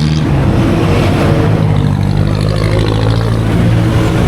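Motorcycle engine running at a steady pace while riding, with wind noise on the microphone.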